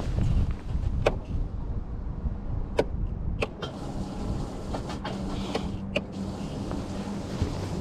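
Small electric boat motor, such as a trolling motor, running with a steady low hum under rumbling wind on the microphone, with several sharp clicks.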